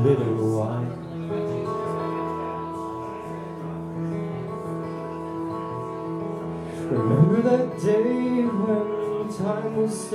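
A man's singing voice with his acoustic guitar accompaniment, played live. The guitar rings steadily throughout, and the voice comes in strongest about seven seconds in with held, sliding notes.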